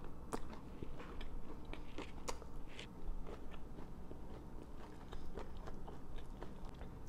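A person chewing a mouthful of sprout sandwich on soft, lightly toasted flatbread with the mouth closed. The chewing comes through as many small, irregular clicks and crunches, picked up close by a clip-on lapel mic.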